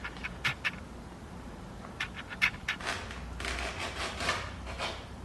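Utility knife cutting through a sheet of wood veneer: a few sharp clicks and taps, then raspy scratching as the blade is drawn along the cut.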